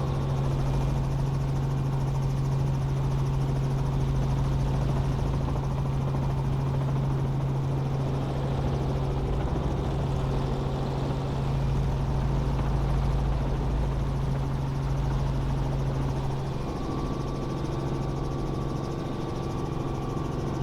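Helicopter running steadily, a continuous low drone from its engine and rotor. The low hum drops away and the sound shifts slightly about three-quarters of the way through.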